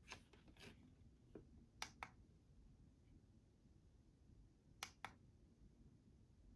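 Plastic menu buttons on the back of a ViewSonic VFD820 digital photo frame clicking: two pairs of sharp quick clicks about three seconds apart, after a softer rustle of handling at the start.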